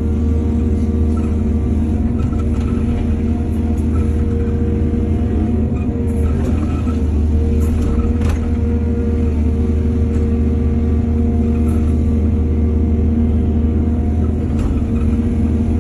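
Heavy diesel engine of an excavator running steadily at working speed, with a few light knocks and clanks about six to eight seconds in.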